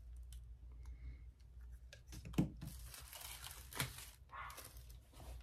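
Soft handling noises at a craft table: paper crinkling with a few light clicks and taps, two louder rustles about two and a half and four seconds in, over a low steady hum.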